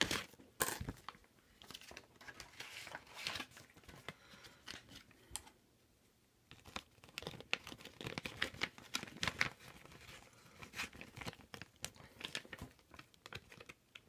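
Plastic packaging crinkling and rustling as it is handled, in irregular crackles, with a short lull about six seconds in.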